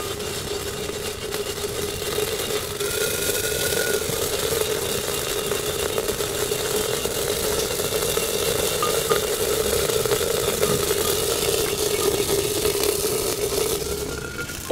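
Cañihua grains being stirred and toasted in a hot clay toasting pot with a stick: a steady scraping rustle, over a constant low hum.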